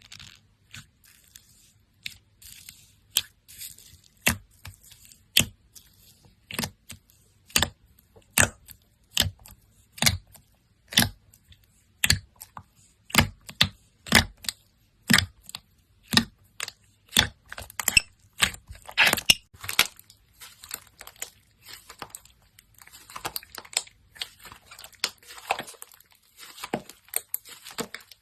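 Slime being pressed and poked, making a string of sharp pops about one a second, then turning to a denser, softer crackling near the end.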